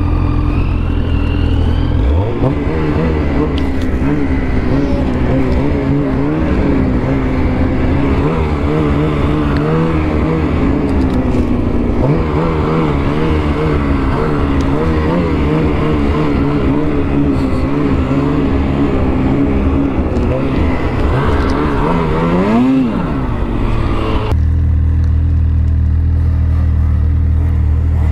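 Snowmobile engine idling steadily, then pulling away about two seconds in and running through deep snow with the pitch rising and falling as the throttle is worked, with one sharp rev near the end. Shortly before the end the sound cuts abruptly to a steady low hum.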